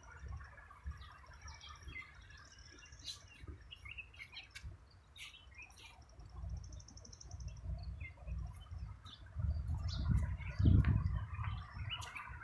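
Small birds chirping and calling, with a rapid trill about six seconds in. Under them is a low buffeting rumble, heavier in the second half and loudest near the end.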